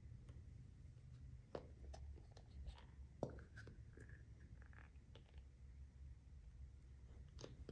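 Faint, scattered clicks and taps of small objects being handled, a few seconds apart, over a low hum.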